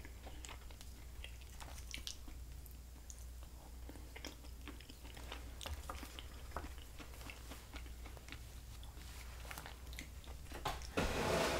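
Close-miked chewing of a turkey dinner: soft wet mouth clicks and smacks, with a brief louder noise near the end.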